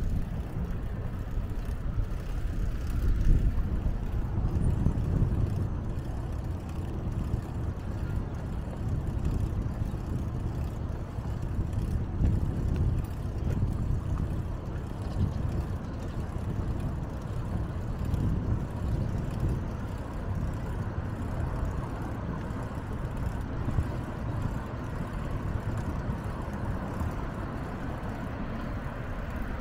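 Steady low rumbling outdoor noise heard while cycling, swelling and easing, with no single clear event standing out.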